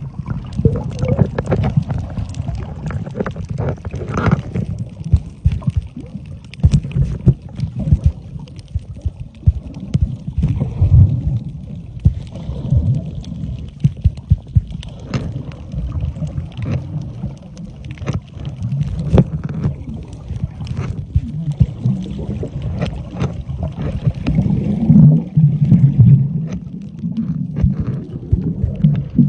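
Underwater sound picked up by a snorkeler's camera: a muffled, uneven low rumble of moving water with many scattered sharp clicks and crackles. A louder spell of bubbling gurgle comes a few seconds before the end, as air bubbles pass the lens.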